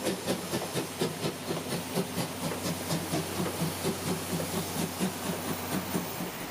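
Japanese C11 steam tank locomotive working under steam, its exhaust chuffing in a quick, even rhythm of about four or five beats a second over a steady hiss of steam.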